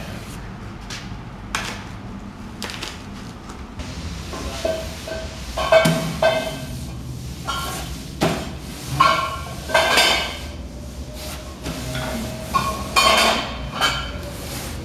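Slotted aluminium extrusion rails from a Torchmate CNC plasma table kit clanking against each other as they are set down and stacked. A series of knocks, each ringing briefly with a metallic tone; they are sparse at first and come thickest from the middle on.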